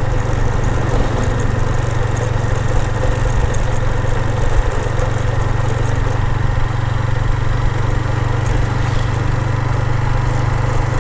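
Motorcycle engine running at a steady pace as the bike is ridden along a rough road.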